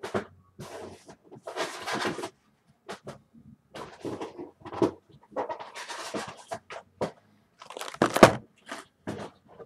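Rustling and scraping of a shrink-wrapped cardboard box of baseball cards being handled, in short irregular bursts, with a louder knock about eight seconds in.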